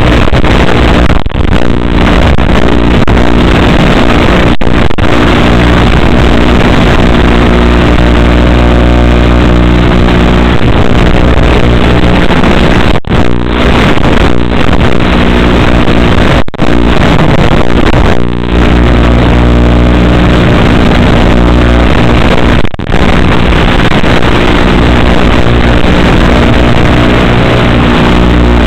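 Loud, steady electronic buzz from an analog FPV video link as recorded by the goggles' DVR: a stack of fixed tones over hiss that holds its pitch throughout and cuts out briefly about six times, as the radio signal breaks up.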